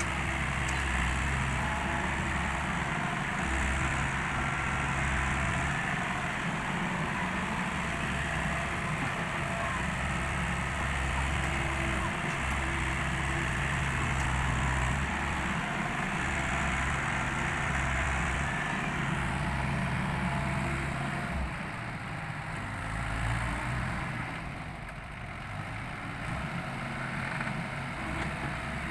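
Small excavator's diesel engine running hard while digging and loading. Its low note swells and eases every few seconds with the work cycle, and it is somewhat softer near the end.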